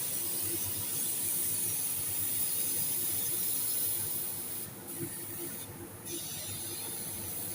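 Compressed-air paint spray gun spraying with a steady hiss, cutting out briefly twice just after the middle as the trigger is let off.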